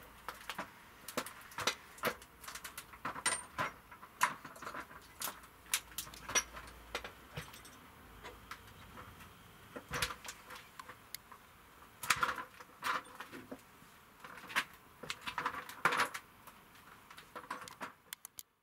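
Irregular light clicks and knocks, a few to several a second, over a faint steady hiss.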